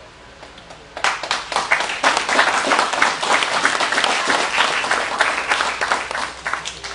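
Audience applauding: many hands clapping, starting suddenly about a second in and dying away near the end.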